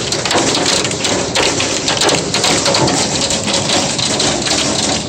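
Hailstones pelting down in a dense, rapid clatter of countless small impacts over a steady rain-like hiss.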